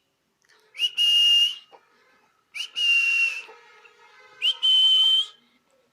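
Three high whistling squeaks about two seconds apart, each a short chirp followed by a longer steady whistle with an airy hiss.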